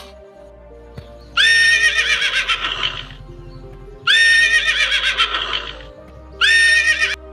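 Horses whinnying three times, each call about a second and a half long with a quavering pitch; the last one is cut off abruptly. Background music with steady low notes plays underneath.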